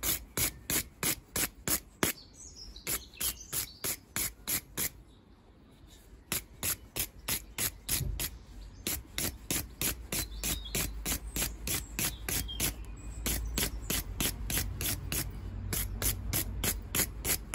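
Wire brush scrubbing a carbon-fouled Lodge C3 spark plug: quick, even rasping strokes, about four or five a second, with a short pause about five seconds in.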